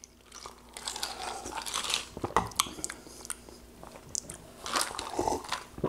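Close-up mouth sounds of a person crunching and chewing ice cubes from a cup of cola, with a few sharp cracks scattered through.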